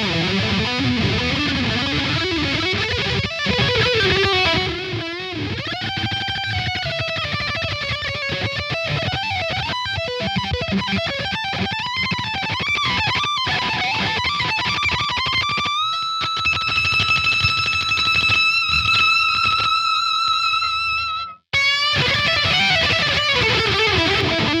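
High-gain electric guitar lead played through the RedTone amp-simulator plugin, gain at maximum, with string bends and vibrato. About two-thirds of the way through, a long held note with wide vibrato cuts off abruptly, and the playing resumes a moment later.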